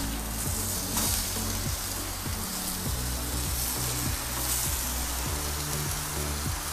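Food sizzling in a frying pan: a steady hiss, with background music's low notes underneath.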